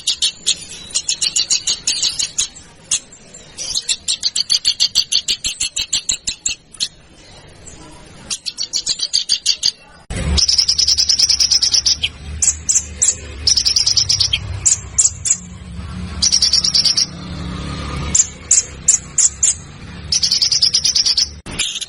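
Songbird song: fast, harsh high-pitched trills in repeated bursts. About ten seconds in it cuts to another recording of short, sharp high rattling phrases with a low hum beneath them.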